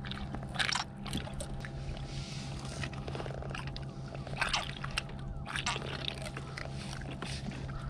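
Handling noises of a thornback ray being unhooked on a kayak: scattered short clicks, rubs and wet sloshing as a tool works at a deeply swallowed hook in its mouth, over a steady low hum.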